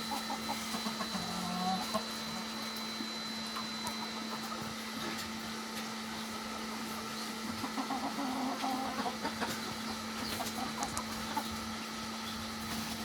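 Desi chickens clucking in short spells, near the start and again about eight seconds in, over a steady low hum.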